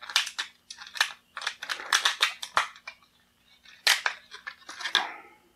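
Clear plastic blister tray crackling and clicking as a small action figure is pried out of it. The clicks come in quick irregular runs, with a louder crackle about four seconds in.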